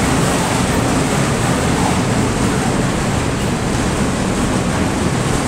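Freight train of open-top wagons passing at speed: a loud, steady noise of wheels running on the rails.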